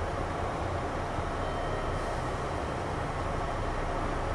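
Kintetsu 6200 series electric commuter train running, heard from inside the car: a steady rumble of wheels on rail and car-body noise.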